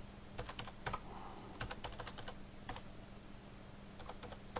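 Computer keyboard being typed on in short, irregular runs of key clicks, over a low steady hum.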